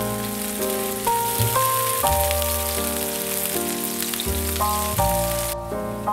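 Chopped red onion sizzling in hot oil in a frying pan, under background music with a bass line and notes that change every half second or so. The sizzle cuts off suddenly near the end while the music carries on.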